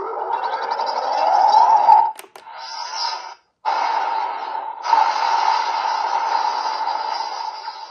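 Electronic sound effects from a toy sword's small built-in speaker: tinny electric buzzing and zapping with rising sweeps. They come in four bursts separated by short gaps, with a couple of sharp clicks just after two seconds in.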